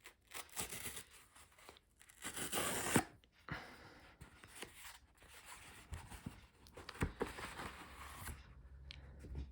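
A mail parcel's packaging being torn open by hand: irregular bursts of tearing and rustling with a few clicks, the longest and loudest about two to three seconds in.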